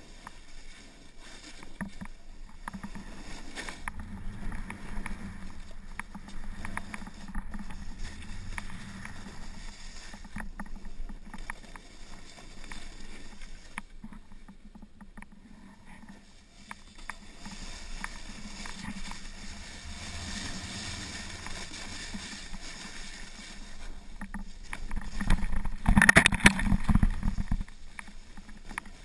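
Skis hissing and scraping through off-piste snow, the rush swelling and fading with the turns, with one louder stretch of snow noise near the end.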